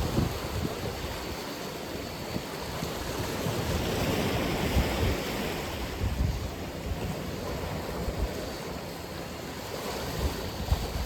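Atlantic Ocean surf: waves breaking and washing in as a steady rush that swells about four seconds in, with low wind buffeting on the microphone.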